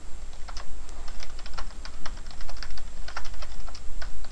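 Computer keyboard typing: an irregular run of quick key clicks as a line of text is typed, over a low steady hum.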